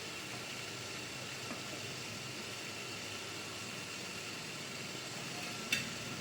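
Steady hiss of an idli steamer heating on a gas stove at full flame, with a single short metallic clink near the end as the lid goes on.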